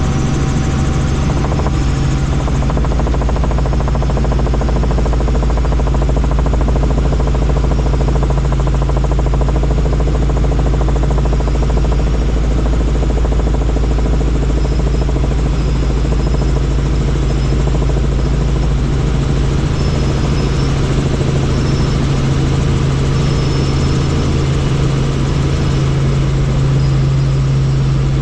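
Helicopter in flight, its engine and rotor running with a loud, steady low drone.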